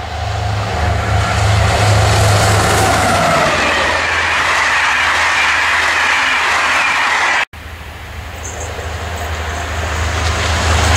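SNCF CC 72100 diesel locomotive passing at speed with a train of coaches: a loud engine drone with a whine that shifts in pitch as it goes by, then the rushing and rail noise of the coaches. After an abrupt cut about seven and a half seconds in, another locomotive-hauled train approaches and grows louder.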